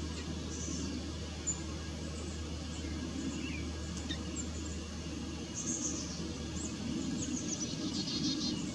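Young chickadees giving short, high, thin chirps, scattered at first, with a quick cluster near the end. A steady low hum runs underneath.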